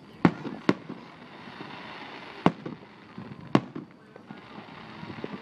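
Aerial firework shells bursting: four sharp bangs, two close together in the first second and two more about a second apart near the middle, with a faint crackle between.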